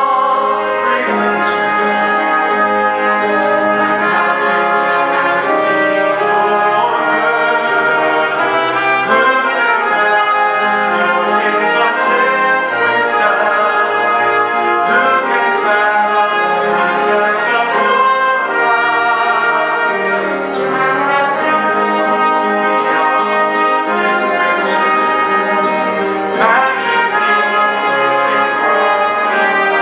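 Brass ensemble of trumpets, trombones and French horn playing a slow worship song in harmony, with violins, piano and organ underneath.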